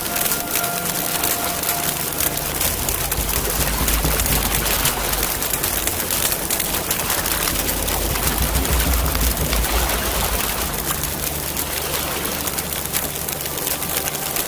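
Wood campfire crackling and popping steadily, with a low rumble underneath.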